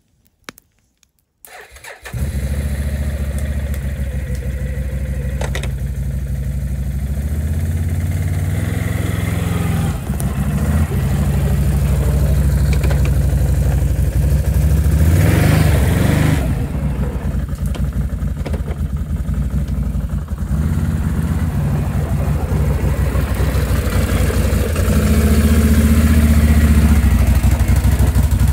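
Can-Am ATV engine running loud and close, with the revs rising and falling as it is ridden; it comes in suddenly about two seconds in, and there is a sharp rev about halfway through.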